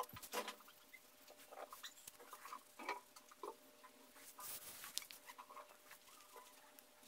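Faint crayon strokes scratching on paper: short, irregular scrapes, with one longer rub a little past halfway.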